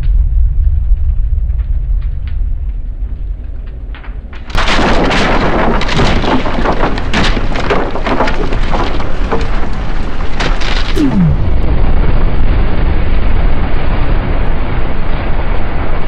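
A large explosion: a deep rumble that fades over the first few seconds, then a sudden loud blast about four and a half seconds in. Dense crackling of debris follows for several seconds and settles into a steady rumble.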